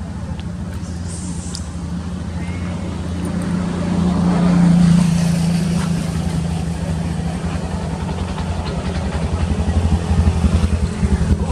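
A motor vehicle's engine running steadily, louder about halfway through, with a pulsing beat near the end.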